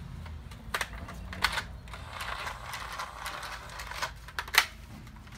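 Plastic clicks and knocks from a Nerf Rapidstrike blaster and its magazine being handled, with a short rattling stretch in the middle and a sharp snap near the end.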